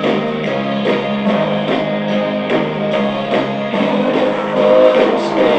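Rock song with strummed guitar and drums playing from a cassette on a Realistic portable cassette player's built-in speakers, the sound thin and muffled, like it is underwater.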